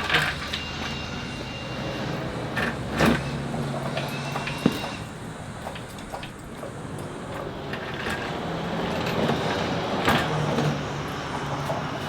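A few sharp knocks and clanks over a steady low background hum, with two short high tones that rise and then hold, one near the start and one about four seconds in.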